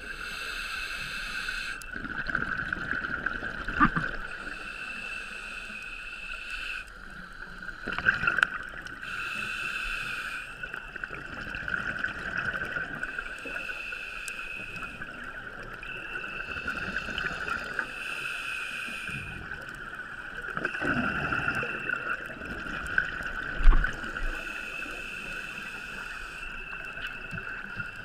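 A scuba diver breathing through a regulator underwater, heard through a GoPro housing. A hissing inhalation comes every few seconds, with bubbly gurgling exhalations in between, over a steady high whine. A few sharp knocks, the loudest late on.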